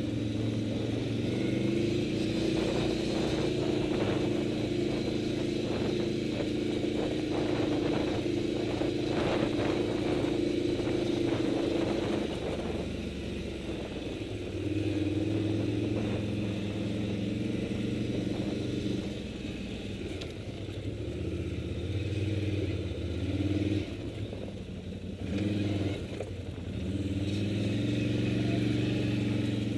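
Touring motorcycle engine running at low speed, steady for the first two thirds, then eased off with two short throttle blips before picking up again.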